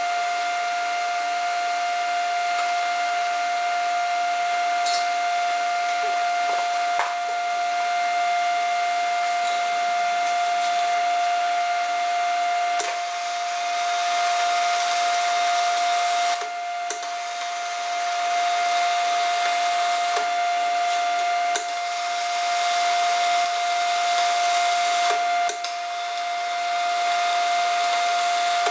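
Arc welding on a steel dozer blade: the arc hisses and crackles in several runs of a few seconds each, starting about halfway through, with short stops between beads. A steady high-pitched hum runs underneath throughout.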